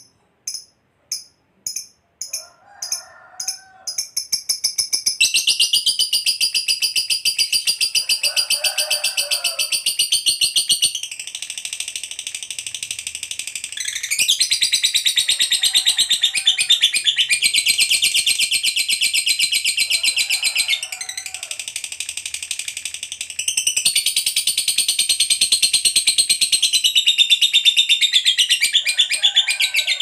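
A lovebird doing its long chattering 'ngekek' song. It opens with a few separate sharp chirps that come faster and faster, then runs into a long, rapid, high-pitched chattering trill, broken by a few short pauses.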